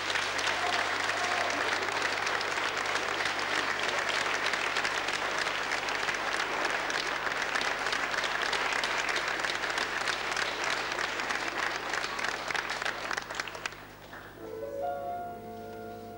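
Audience applauding. The applause stops a little before the end, and a grand piano starts playing a few notes.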